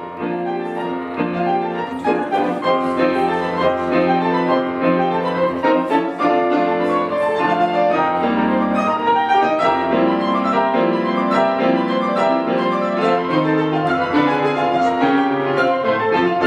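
Grand piano playing a waltz, with notes and chords held over a steady bass line.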